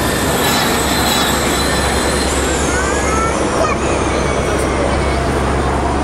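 High-pitched electric whine of a Formula E car's motor and gearbox as it passes, the pitch gliding and then falling through the middle, over a steady low rumble of background noise.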